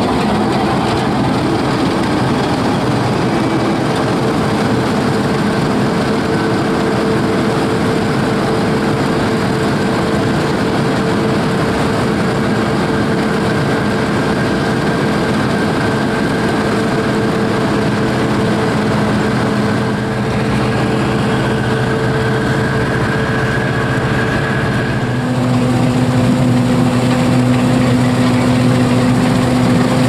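Heavy diesel engine running steadily with a constant hum. About 25 seconds in its tone changes and it gets a little louder.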